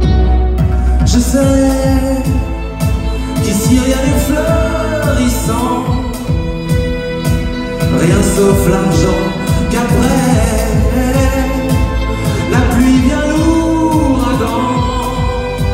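Live band music: violin and guitar over a fast, steady rhythmic pulse, with a man singing at the microphone.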